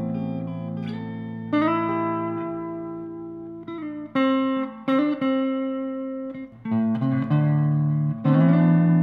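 Background music on guitar: plucked notes and chords that ring on and fade, with a new one struck every second or two.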